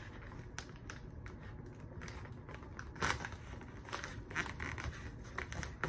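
Resealable zipper on a foil-lined freeze-dried meal pouch being pressed shut by hand: a run of small clicks and crinkles, with one louder crackle about three seconds in.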